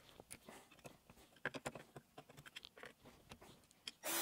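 Faint scattered clicks and taps of a hand screwdriver turning out bolts on a two-stroke motorcycle engine's aluminium crankcase. Right at the end a cordless drill-driver starts up with a steady whir.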